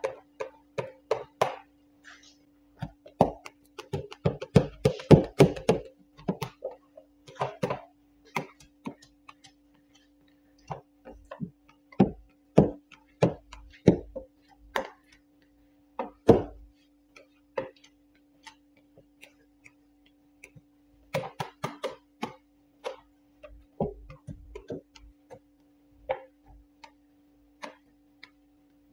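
Squeegee working paint protection film down onto a wooden bench top: irregular squeaks, taps and knocks with short pauses between them, the sharpest about two-thirds of the way through. A steady low hum runs underneath.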